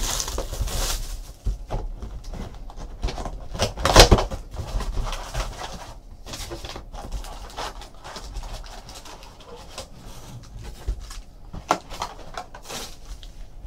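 Trading card boxes and packs being handled and opened on a table: rustling and scattered clicks, with a sharp knock about four seconds in.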